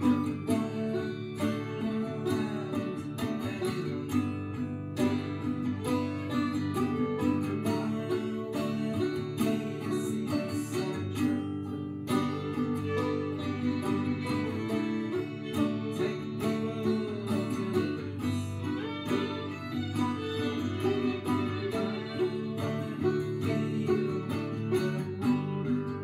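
Acoustic guitar, banjo and fiddle playing a folk tune together.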